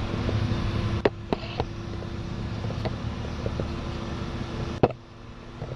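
A few sharp knocks and clicks of someone climbing up to a boat's fly bridge, one loud knock near the end, over a steady low rumble and hum.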